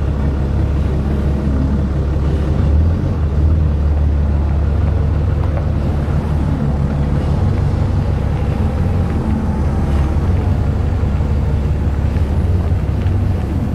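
Heavy vehicle engines running close by with a steady low rumble: a semi truck's engine and a forklift's engine working as they move and pull.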